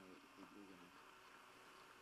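Near silence: a faint, steady high hiss. A faint murmuring voice fades out within the first second.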